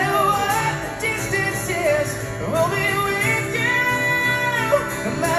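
A man singing a slow song with long held notes over an acoustic guitar, played live.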